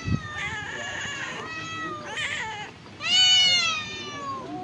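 A hungry stray cat meowing over and over, asking for food: several drawn-out meows, the loudest and longest about three seconds in, falling in pitch at its end. A brief low thump comes at the very start.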